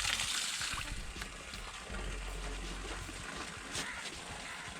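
Water spraying onto a motorbike being washed, a hiss that fades out within the first second, followed by a low steady hum with faint scattered knocks.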